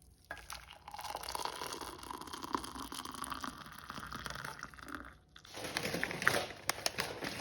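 Milk boiling in a pan on the stove: a steady crackling, bubbling hiss that stops suddenly about five seconds in. Sharper clicks and crackling follow.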